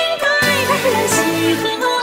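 Pop music playing, with a voice singing a wavering melody over sustained instruments.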